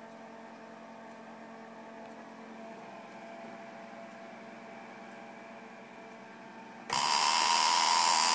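Faint low hum, then about seven seconds in a home-built spark-gap Tesla coil switches on with a sudden, loud, steady buzzing hiss of sparks.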